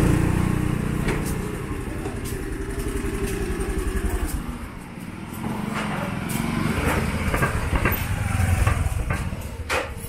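Small motorcycle and scooter engines passing close. One scooter goes by right at the start and fades away, then a second motorcycle draws near and passes about eight or nine seconds in.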